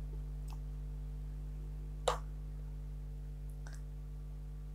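A single sharp mouse click about two seconds in, with a few fainter ticks, over a steady low electrical hum.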